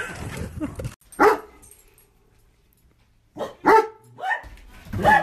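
A dog barking: a single bark about a second in, then a quick run of barks from about three and a half seconds in.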